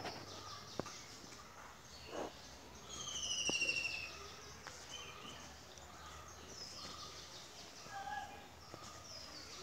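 Birds calling in the surrounding trees. About three seconds in, one bird gives a falling, trilled call a little over a second long, the loudest sound here. There are a couple of faint clicks.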